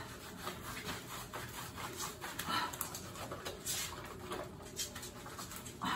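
Hands scrubbing shampoo lather into a small dog's soaked curly coat: soft, irregular wet rubbing of foam and fur.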